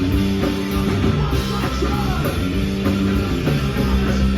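Punk rock band playing loud in a gap between vocal lines, with guitars and drums.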